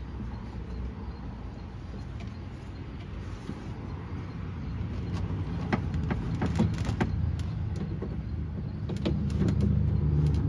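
Rummaging inside a car's door cavity: a low rumble of handling noise with scattered light clicks and knocks in the middle and near the end, while searching for a ratchet, socket and bolt dropped inside the door.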